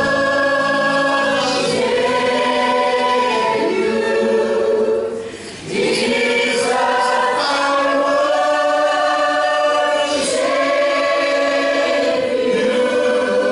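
Congregation singing a slow worship song together, many voices holding long notes, with a brief pause between phrases about five and a half seconds in.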